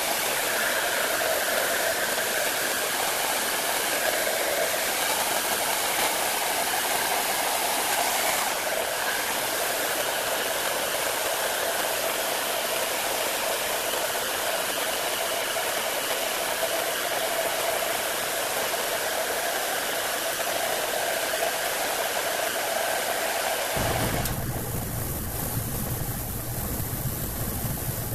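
Hand-held heat gun blowing steadily, a hiss of air over a faint fan whine. About 24 s in it cuts to the lower, steady hum of an oscillating spindle sander's motor, sped up.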